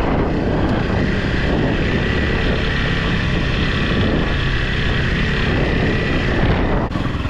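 Dual-sport motorcycle engine running steadily while being ridden, with wind noise on the microphone.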